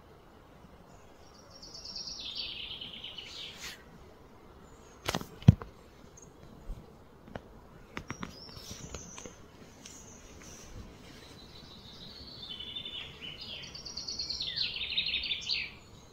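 A songbird singing: a rapid trilled phrase that steps down in pitch about two seconds in, and a longer, louder one near the end. A couple of sharp knocks about five seconds in are the loudest thing, with a few fainter clicks a little later.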